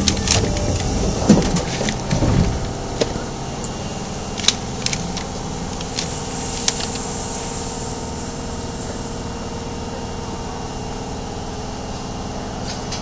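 Subway train standing at a platform with its doors open: a steady electrical and mechanical hum from the car's equipment, with some knocks and rumbles in the first couple of seconds and a few sharp clicks after that.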